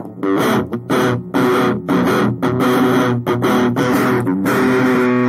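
Instrumental music led by guitar, playing short chopped chords a few times a second, then settling into a held chord near the end.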